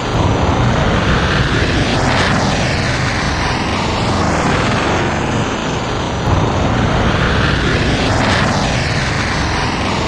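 A group of five airplanes flying overhead together: a steady, dense engine drone whose tone sweeps up and down in slow waves as the planes pass.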